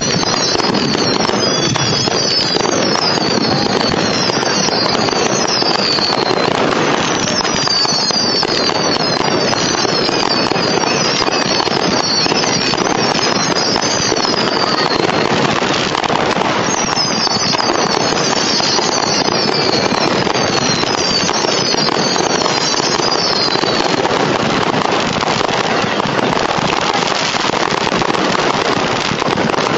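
A fireworks display going off continuously with dense, loud crackling and popping. Three runs of rapid high whistles falling in pitch come and go over it, each lasting several seconds.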